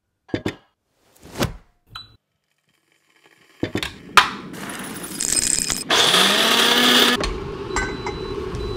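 Kitchen handling sounds while making pour-over coffee: a few quick knocks, then a sharp clink as a glass is set down on a kitchen scale. About six seconds in, a small electric coffee grinder whirs for about a second, its pitch rising as it spins up.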